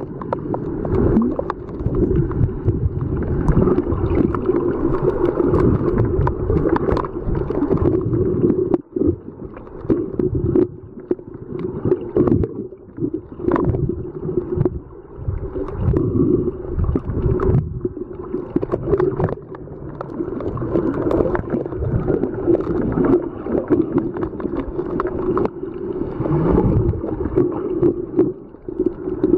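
Muffled underwater rumble and churning of water heard by a camera held under water, with a steady low hum beneath uneven surges.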